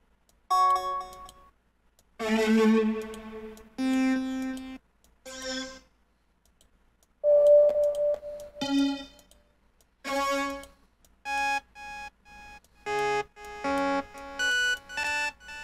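Lead synthesizer presets in FL Studio Mobile being auditioned one after another: short single synth notes, each with a different tone, with silent gaps between them. Quicker notes at changing pitches follow near the end.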